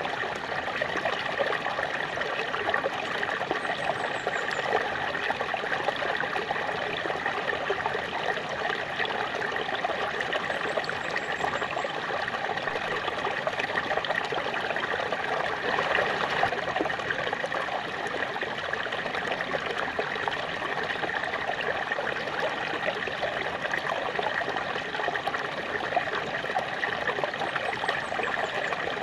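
Small waterfall: water falling and splashing in a steady, even rush.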